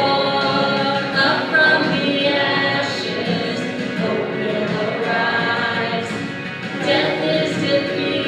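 A group of voices singing a hymn together, with sustained, overlapping sung notes.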